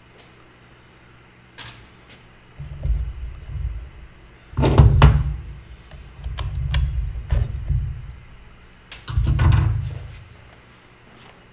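Clicks and knocks of a chainsaw carburetor and small parts being handled and set down on a workbench, with bouts of low rumble; the loudest knocks come about halfway through and near the end.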